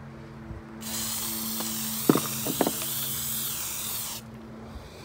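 Aerosol spray paint can spraying in one continuous hiss of about three seconds, starting about a second in, with a couple of sharp clicks partway through.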